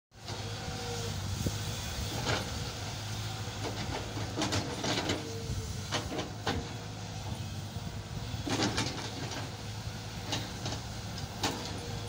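SANY crawler excavator's diesel engine running steadily under load, with repeated sharp clanks and scrapes from the bucket and arm as it digs earth, and a tone that comes and goes.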